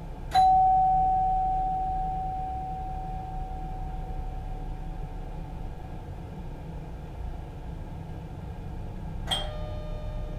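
A bell in the cab of an NS Mat '64 electric train, struck once: a clear single tone that rings and slowly fades over several seconds. About nine seconds in, a second, slightly lower strike rings more briefly, over the train's low steady rumble.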